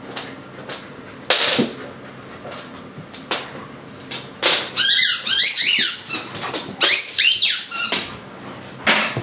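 Rubber squeaky toy squeezed repeatedly in a dog's mouth: a run of loud, high squeaks, each rising and falling in pitch, for about three seconds from halfway through. A thump about a second in, and another near the end.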